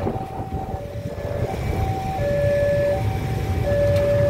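Railway level-crossing warning alarm sounding, a two-tone signal that alternates a higher and a lower tone about every three-quarters of a second. Under it, motorcycle engines rumble, growing louder about halfway through as traffic moves off across the crossing.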